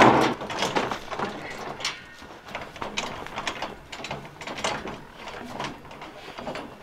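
Steel rolling scaffold clanking and rattling in irregular knocks as it is pushed along on its casters and then climbed.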